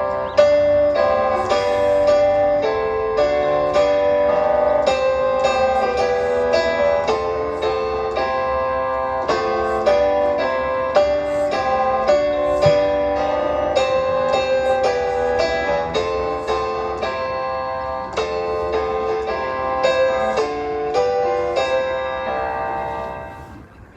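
Piano playing the accompaniment to a school song in steady, evenly struck chords, dying away about a second before the end.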